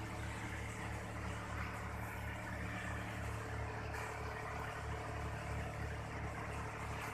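An engine idling steadily: a low hum with an even throb about three times a second.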